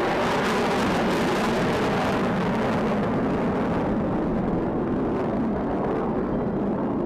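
Steady jet-engine roar of a formation of F-16 Fighting Falcon fighter jets flying overhead. The high hiss dulls a little in the later part.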